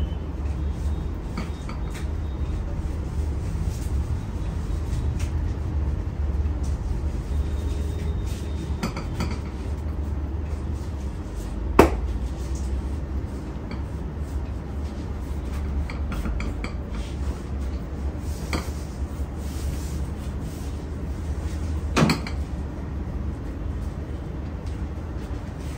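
Barber's hands working during a massage: light scattered clicks and taps over a steady low hum, with two sharp, loud clicks about twelve and twenty-two seconds in.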